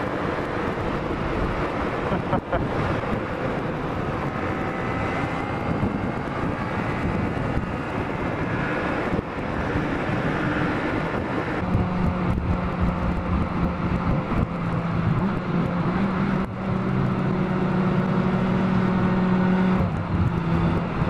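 Sport motorcycle being ridden, heard from onboard: the engine runs under a steady rush of wind noise, and from about halfway through the engine settles into a steady low hum at cruising speed.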